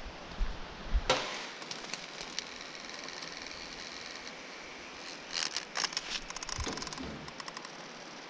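A small camera drone coming down into ferns: a sudden rustle about a second in, then its motors whine steadily in a high pitch for about three seconds before stopping. Leaves and fronds rustle as it is handled and picked up.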